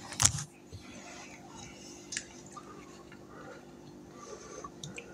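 A sharp knock about a quarter-second in, then faint, muffled voices and a few light clicks.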